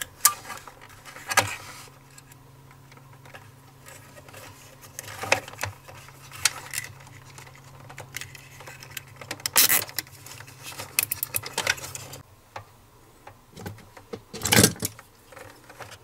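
Nylon zip ties being threaded around a plastic switch bracket and pulled tight: scattered handling clicks, then a quick run of ratcheting clicks a little past the middle as a tie is cinched, and a louder sharp click near the end.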